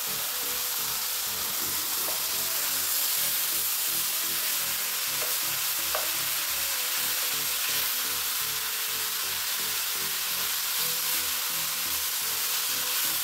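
Raw ground beef and pork sizzling steadily in a nonstick frying pan on a fried onion and tomato base, stirred and broken up with a wooden spoon. A couple of faint clicks come about halfway through.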